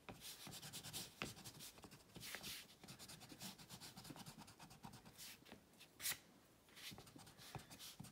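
Pencil-top rubber scrubbing back and forth on watercolour paper, erasing pencil lines in quick, faint strokes, with a sharper tick about six seconds in.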